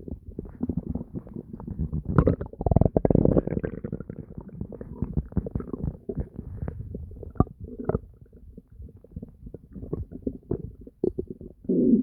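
Human stomach gurgling and growling: a dense run of small crackling gurgles, with a louder, deeper rumble from about two and a half to four seconds in and another short loud gurgle at the very end.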